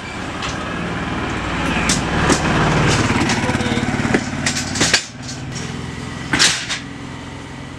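Folding ambulance stretcher trolley rattling on its casters as it is rolled over asphalt and pushed into the back of the ambulance, its metal frame clattering; sharp metal clanks about five and six and a half seconds in as it folds and settles onto the floor.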